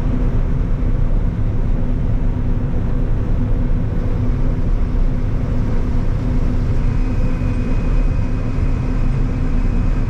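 Combine harvester running steadily while picking corn, its engine and machinery heard from inside the cab as a loud, constant drone. A faint high steady tone joins about seven seconds in.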